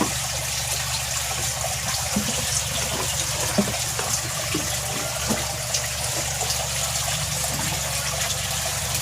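Aquaspeed 5-watt dual-outlet aquarium air pump running with a steady hum while air bubbles out of its tubing into water. One outlet blows only weakly and the other gives no air at all, a fault later traced to a crack in the pump.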